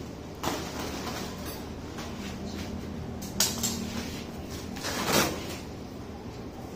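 Plastic wrapping and a foam packing sheet rustling and crinkling as they are pulled off a bicycle, with a few louder swishes, the biggest about five seconds in.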